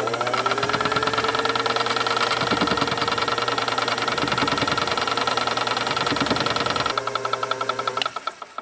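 Filing machine (die filer), belt-driven by a 1930s Leland Electric variable-speed reversible motor, running with a fast, even reciprocating rhythm over a steady motor whine as the file cuts a steel workpiece. Near the end there is a sharp click and the machine winds down.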